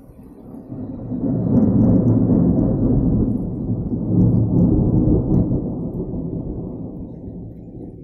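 A long roll of thunder: a deep rumble that builds over the first second or so, stays loud for a few seconds, then slowly dies away.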